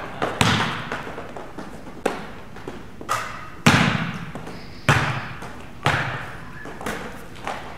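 Basketballs bouncing on a hard gym floor during shooting: separate thuds roughly once a second, each echoing in the gym.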